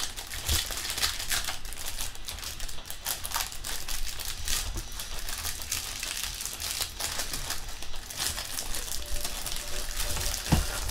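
Trading cards and their packaging being handled: irregular crinkling and rustling with light clicks.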